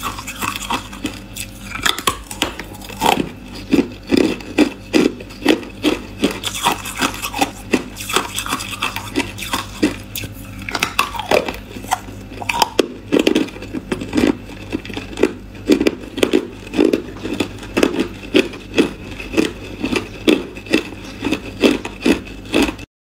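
A person biting and chewing hard ice: a steady run of sharp crunches, about two a second, stopping abruptly just before the end.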